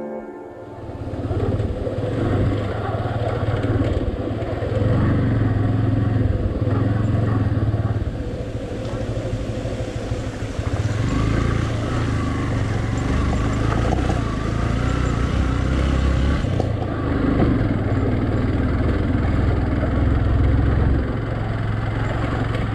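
Motorcycle engine running as the bike is ridden over a rough off-road track; the engine sound dips about a third of the way through and then picks up again.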